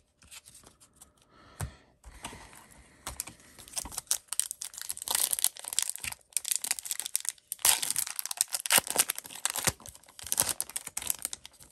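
Foil trading-card pack wrapper being torn open and crinkled, with cards handled and slid against each other. The crackling comes in quick irregular runs, loudest in the second half.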